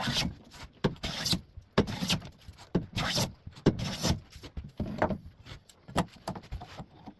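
Hand plane shaving wood in repeated strokes, about one a second, with short knocks between strokes. It is taking down a corner of the board that is still high, to bring the surface square.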